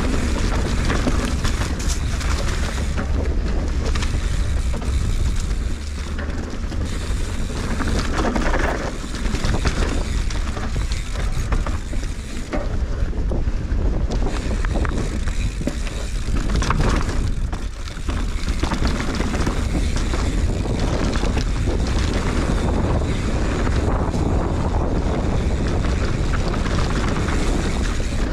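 Wind buffeting an action camera's microphone on a mountain bike descending fast, mixed with tyre noise on the dirt trail and many short knocks and rattles from the bike over rough ground.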